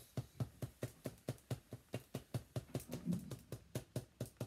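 Felt-tip pen tip tapping on paper, a fast, fairly even run of sharp taps about five a second, as dots are dabbed onto a drawing.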